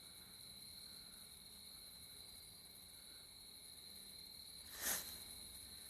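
Faint, steady chorus of night insects, a continuous high-pitched trill. A single short knock or rustle comes just under five seconds in.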